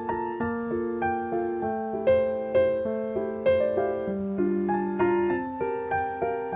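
Background piano music: a gentle melody of struck notes that ring and fade.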